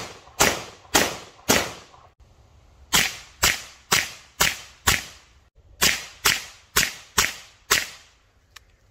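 Suppressed 9mm CZ Scorpion firing semi-automatic strings, about two shots a second, each shot a sharp report with a short fading tail. Three shots end a first string early on. A string of five follows through a Dead Air Wolfman suppressor in its short configuration, then after a short pause five more in its full configuration. The 115-grain rounds are fired into a close berm and, the shooter thinks, stay subsonic, so there is no bullet crack.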